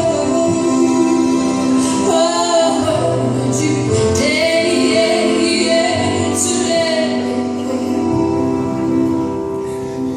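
A song with a woman singing long held notes over sustained instrumental backing.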